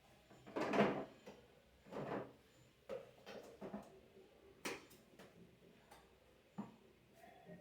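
Irregular knocks and clicks of vacuum cleaner parts being handled during a repair, about half a dozen in all, with a short scrape about 2 s in; the loudest knock comes a little under a second in.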